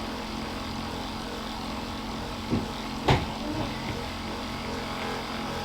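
Steady low electric motor hum, with two brief faint sounds about two and a half and three seconds in.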